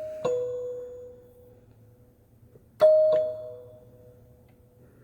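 Yamaha PSR-330 keyboard's celesta voice playing a falling two-note doorbell chime. A low note rings out just after the start as a high note fades, then a full high-low ding-dong comes about three seconds in, each note ringing and dying away.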